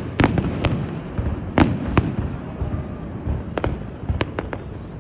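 Fireworks going off: a series of sharp bangs and cracks at uneven intervals. A few come close together at the start, single ones follow about a second and a half and two seconds in, and a quick cluster of four or five comes near the end, all over a steady low rumble.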